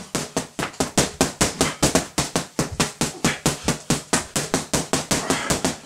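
12oz boxing gloves hammering a free-standing punch bag in a rapid non-stop flurry, about six punches a second.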